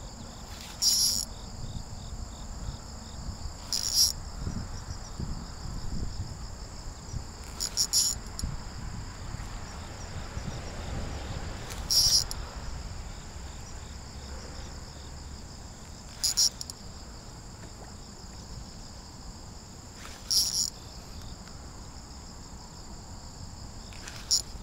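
Insects calling: a steady high-pitched chorus, with a louder short burst about every four seconds.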